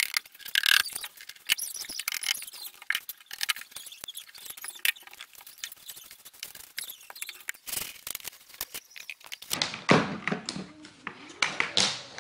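A hammer knock, then a floor brush sweeping drilling dust and debris over a laminate floor: a dense run of scratchy brushing and small clicks. Near the end, heavier knocks and clatter.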